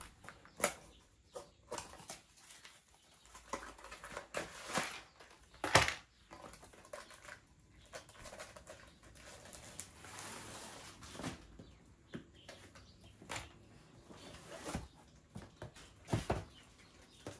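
Diamond-painting kit box being opened and its contents handled: scattered light knocks, scrapes and rustles of packaging, with a sharper knock about six seconds in and a stretch of soft rustling a few seconds later.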